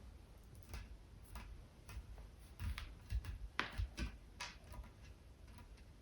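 Irregular light clicks and knocks of hard objects being handled, with a quicker cluster of sharper ones about halfway through.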